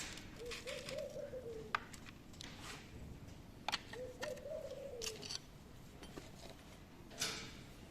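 A dove cooing: two short cooing phrases about three and a half seconds apart, with a few sharp clicks in between.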